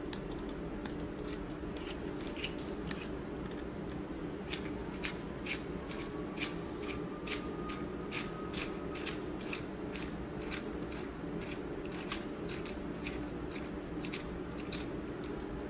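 Small, sharp, irregular clicks and ticks of a T4 Torx precision screwdriver turning the tiny screws out of a Microsoft Lumia 950 XL's plastic back plate, coming quickest in the middle of the stretch. A steady low hum runs underneath.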